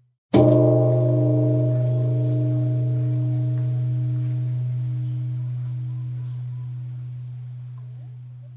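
Temple bell struck once, about a third of a second in, then ringing on with a deep hum and several higher tones that slowly fade.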